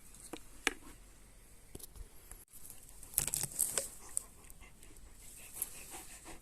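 Brush and dry twigs crackling and snapping as someone moves through dense woodland undergrowth, in scattered irregular snaps with a busier spell of crackling a little after halfway.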